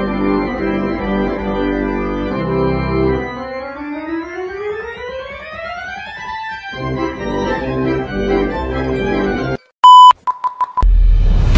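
Organ music playing sustained chords, with one tone sliding steadily upward in pitch through the middle. Near the end the music cuts off and a loud steady beep sounds, then a few short beeps, then loud music starts.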